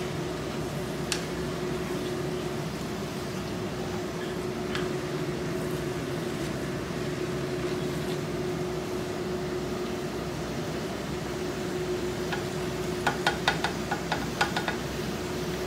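Steady kitchen fan hum with a wooden spatula stirring ground meat in a wok. A few single light knocks come early, and a quick run of light knocks of the spatula against the pan comes near the end.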